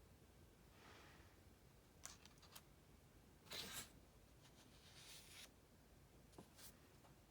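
Faint paper rustles and light taps of a book being handled, with one louder rustle about halfway through, as of a page being turned.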